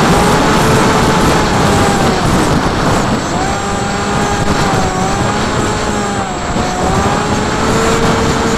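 FPV drone's electric motors and propellers whining, the pitch wavering up and down with throttle, over rushing wind noise, heard from the drone's onboard camera.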